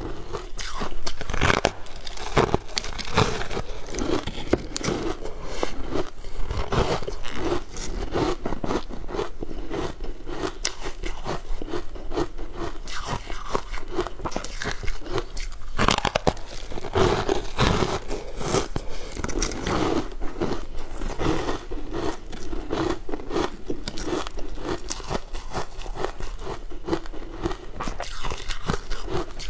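A person biting and chewing crunchy frozen food, close to a lapel microphone: a dense run of small crunches and chewing sounds with no let-up.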